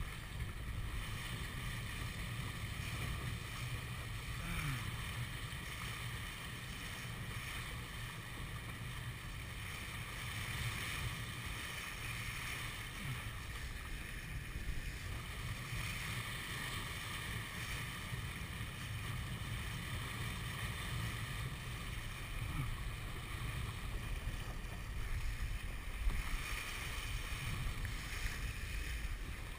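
Wind buffeting the camera microphone with a steady low rumble, over water rushing and splashing along the hull of a 470 sailing dinghy under way.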